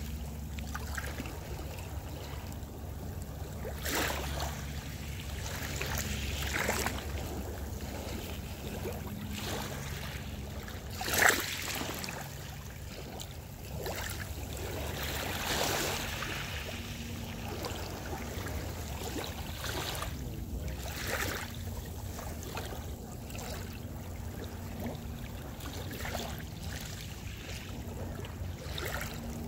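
Small sea waves lapping and washing over a rocky shore, with irregular splashes, the loudest about eleven seconds in, over a low steady rumble.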